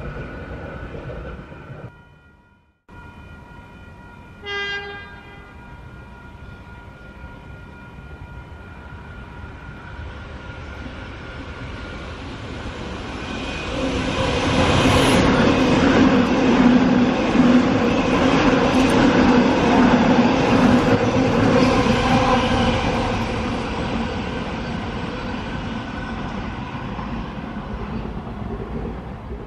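A short train horn blast about four seconds in. Then a passenger train approaches and runs through the station: its running noise builds, is loudest in the middle, and fades toward the end.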